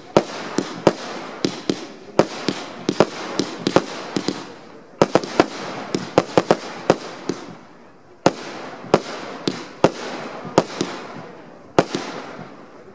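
Fireworks display: a rapid run of aerial shell bursts, several sharp bangs a second over a constant rushing hiss. The bangs thin out briefly about eight seconds in and again near the end.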